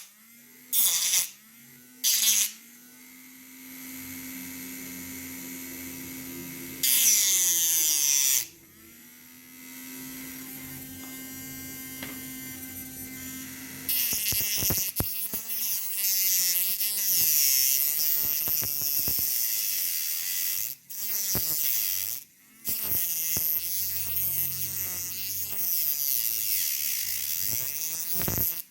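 Small 9-volt battery DC motor mini grinder switched on in several short bursts, then run for a few seconds at a time, its pitch rising as it spins up and falling as it runs down. From about halfway it runs continuously and louder, its pitch wavering up and down, with two brief stops near the end.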